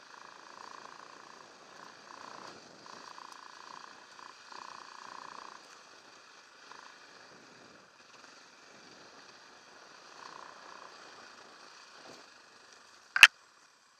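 Off-road motorcycle engine running at low revs on a trail, heard muffled through the camera housing, surging unevenly with the throttle. A single sharp, loud knock near the end.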